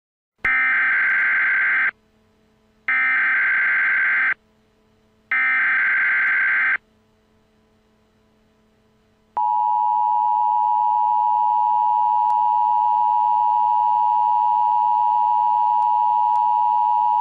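Emergency Alert System header: three short bursts of SAME data tones, each a harsh buzzing screech about a second and a half long. After a pause comes the EAS attention signal, a steady two-tone beep held for about eight seconds. Together they mark the start of an emergency alert broadcast.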